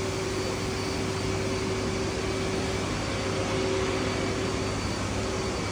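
Steady hum and even rush of air from cooling or ventilation equipment, with a constant low hum and a fainter higher tone, unchanging throughout.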